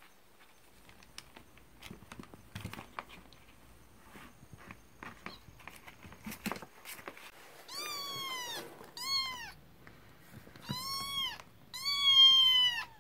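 Kittens scuffling on newspaper in a cardboard box, claws and paper making scattered rustles and clicks. In the second half a kitten meows four times, high and arching, the last meow the loudest and longest.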